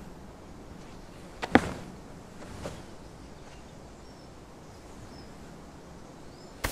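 Quiet outdoor field ambience, a faint even hiss, broken by one short sharp sound about a second and a half in and a softer one about a second later.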